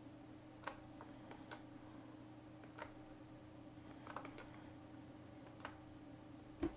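Faint, scattered clicks of a computer keyboard and mouse while a command is copied and pasted, a dozen or so single clicks with short clusters, over a low steady hum.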